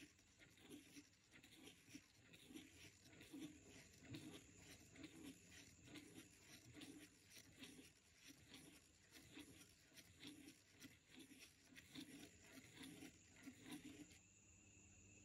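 Faint rapid ticking and scratching of a plastic spirograph gear wheel rolling around the inside of a toothed ring while a pen traces loops on paper, with a low rub repeating about every two-thirds of a second. It stops about a second before the end.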